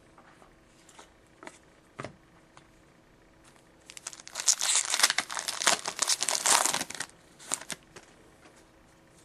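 Foil wrapper of a trading-card pack torn open and crinkled for about three seconds, starting about four seconds in, after a few light clicks of cards being handled.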